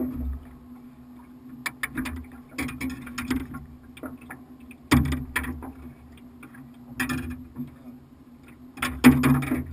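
Irregular knocks and clatters on an aluminum fishing boat's hull and gear as the anglers shift their feet and handle rods, with the loudest cluster near the end. A steady low hum runs underneath.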